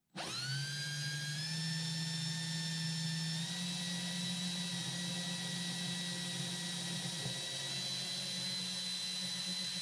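Cordless drill with a 3/16-inch bit running slowly, drilling a hole through a guitar's glued-on wooden bridge. The motor whine spins up at the start, steps up a little in speed twice in the first few seconds, then holds steady.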